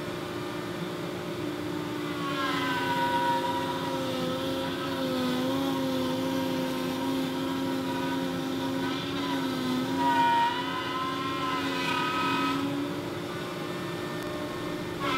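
Bosch 1617 router running in a router table with a 1/4-inch flush trim bit: a steady motor whine. About two seconds in the bit starts trimming 3/4-inch MDF along a template, adding a cutting rasp and slight wavers in pitch, and near the end it runs free again. The motor holds its speed through the cut and does not bog down.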